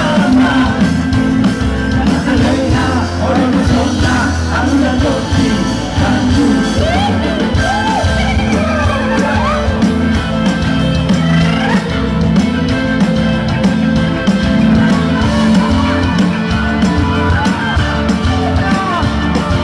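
Live band playing a dangdut song with sung vocals through the concert PA: keyboards, drum kit and guitar under several singers' voices.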